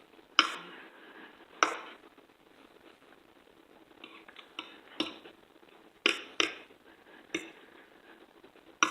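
Eating utensils clinking against a plate or dish: several sharp clinks at irregular intervals, each ringing briefly.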